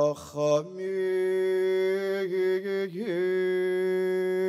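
A man chanting a Hebrew prayer for the dead, solo and unaccompanied, in long held notes. He holds one steady note for about two seconds, makes a quick turn in pitch about three seconds in, then holds another long note with a widening vibrato near the end.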